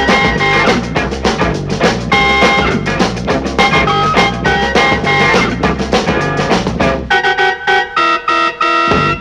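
1960s British beat instrumental record: drum kit, bass line and guitar playing a driving groove. About seven seconds in the bass and drums drop out, leaving held chords cut into short rhythmic stabs.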